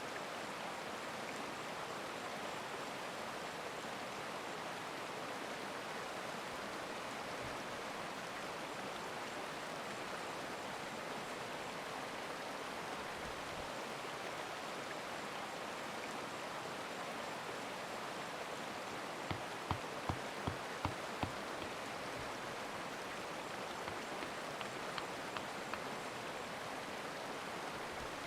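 Steady rush of a stream with rain falling. About two-thirds of the way in comes a quick run of about six light knocks, and a few fainter ones follow a few seconds later.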